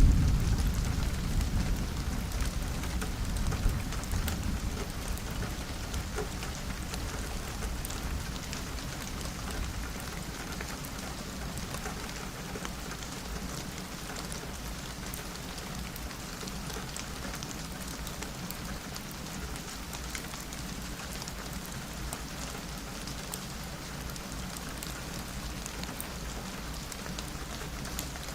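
Steady rain, with the low rumble of a thunderclap dying away over the first several seconds.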